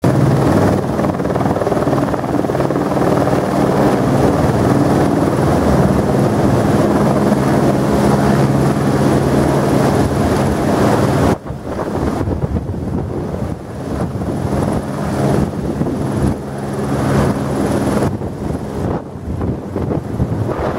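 Helicopter running close by: a loud, steady drone of rotor and engine. It breaks off sharply about halfway through and picks up again a little quieter and more uneven.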